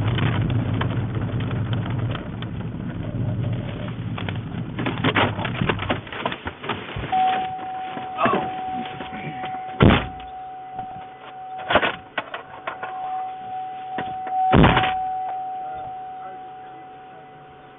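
A vehicle running with a low rumble that stops about six seconds in. A steady high warning tone then sounds while doors are shut with heavy thunks, three of them loud.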